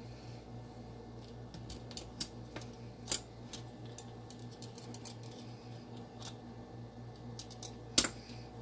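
Scattered light clicks and taps of small metal knife parts and a screwdriver being handled during reassembly of a folding knife, with one sharper click near the end.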